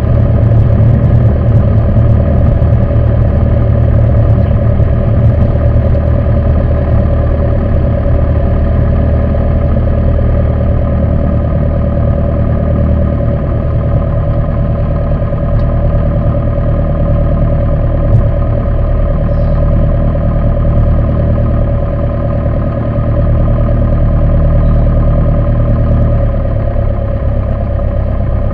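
Piper PA-28's piston engine and propeller running at low taxi power, a steady drone heard from inside the cockpit.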